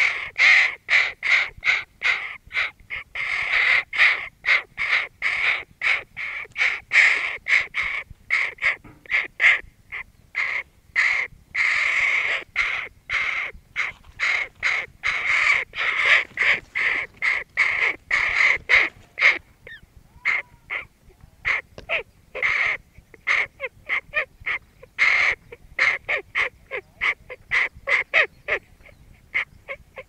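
Hooded crow cawing: a long run of short caws, often two or three a second, with a few longer drawn-out calls among them.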